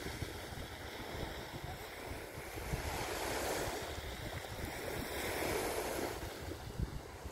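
Small waves washing onto a sandy shore, the surf swelling and easing in a slow rhythm, with wind buffeting the microphone as a low rumble.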